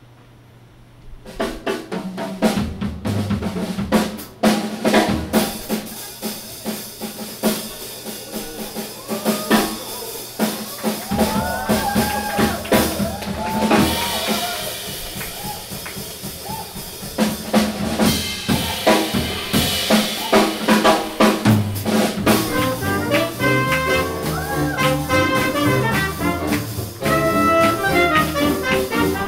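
Small swing jazz band playing live. Drum kit with rimshots, snare and bass drum leads after about a second of quiet, and near the end the saxophone and trumpet come in over upright bass and guitar.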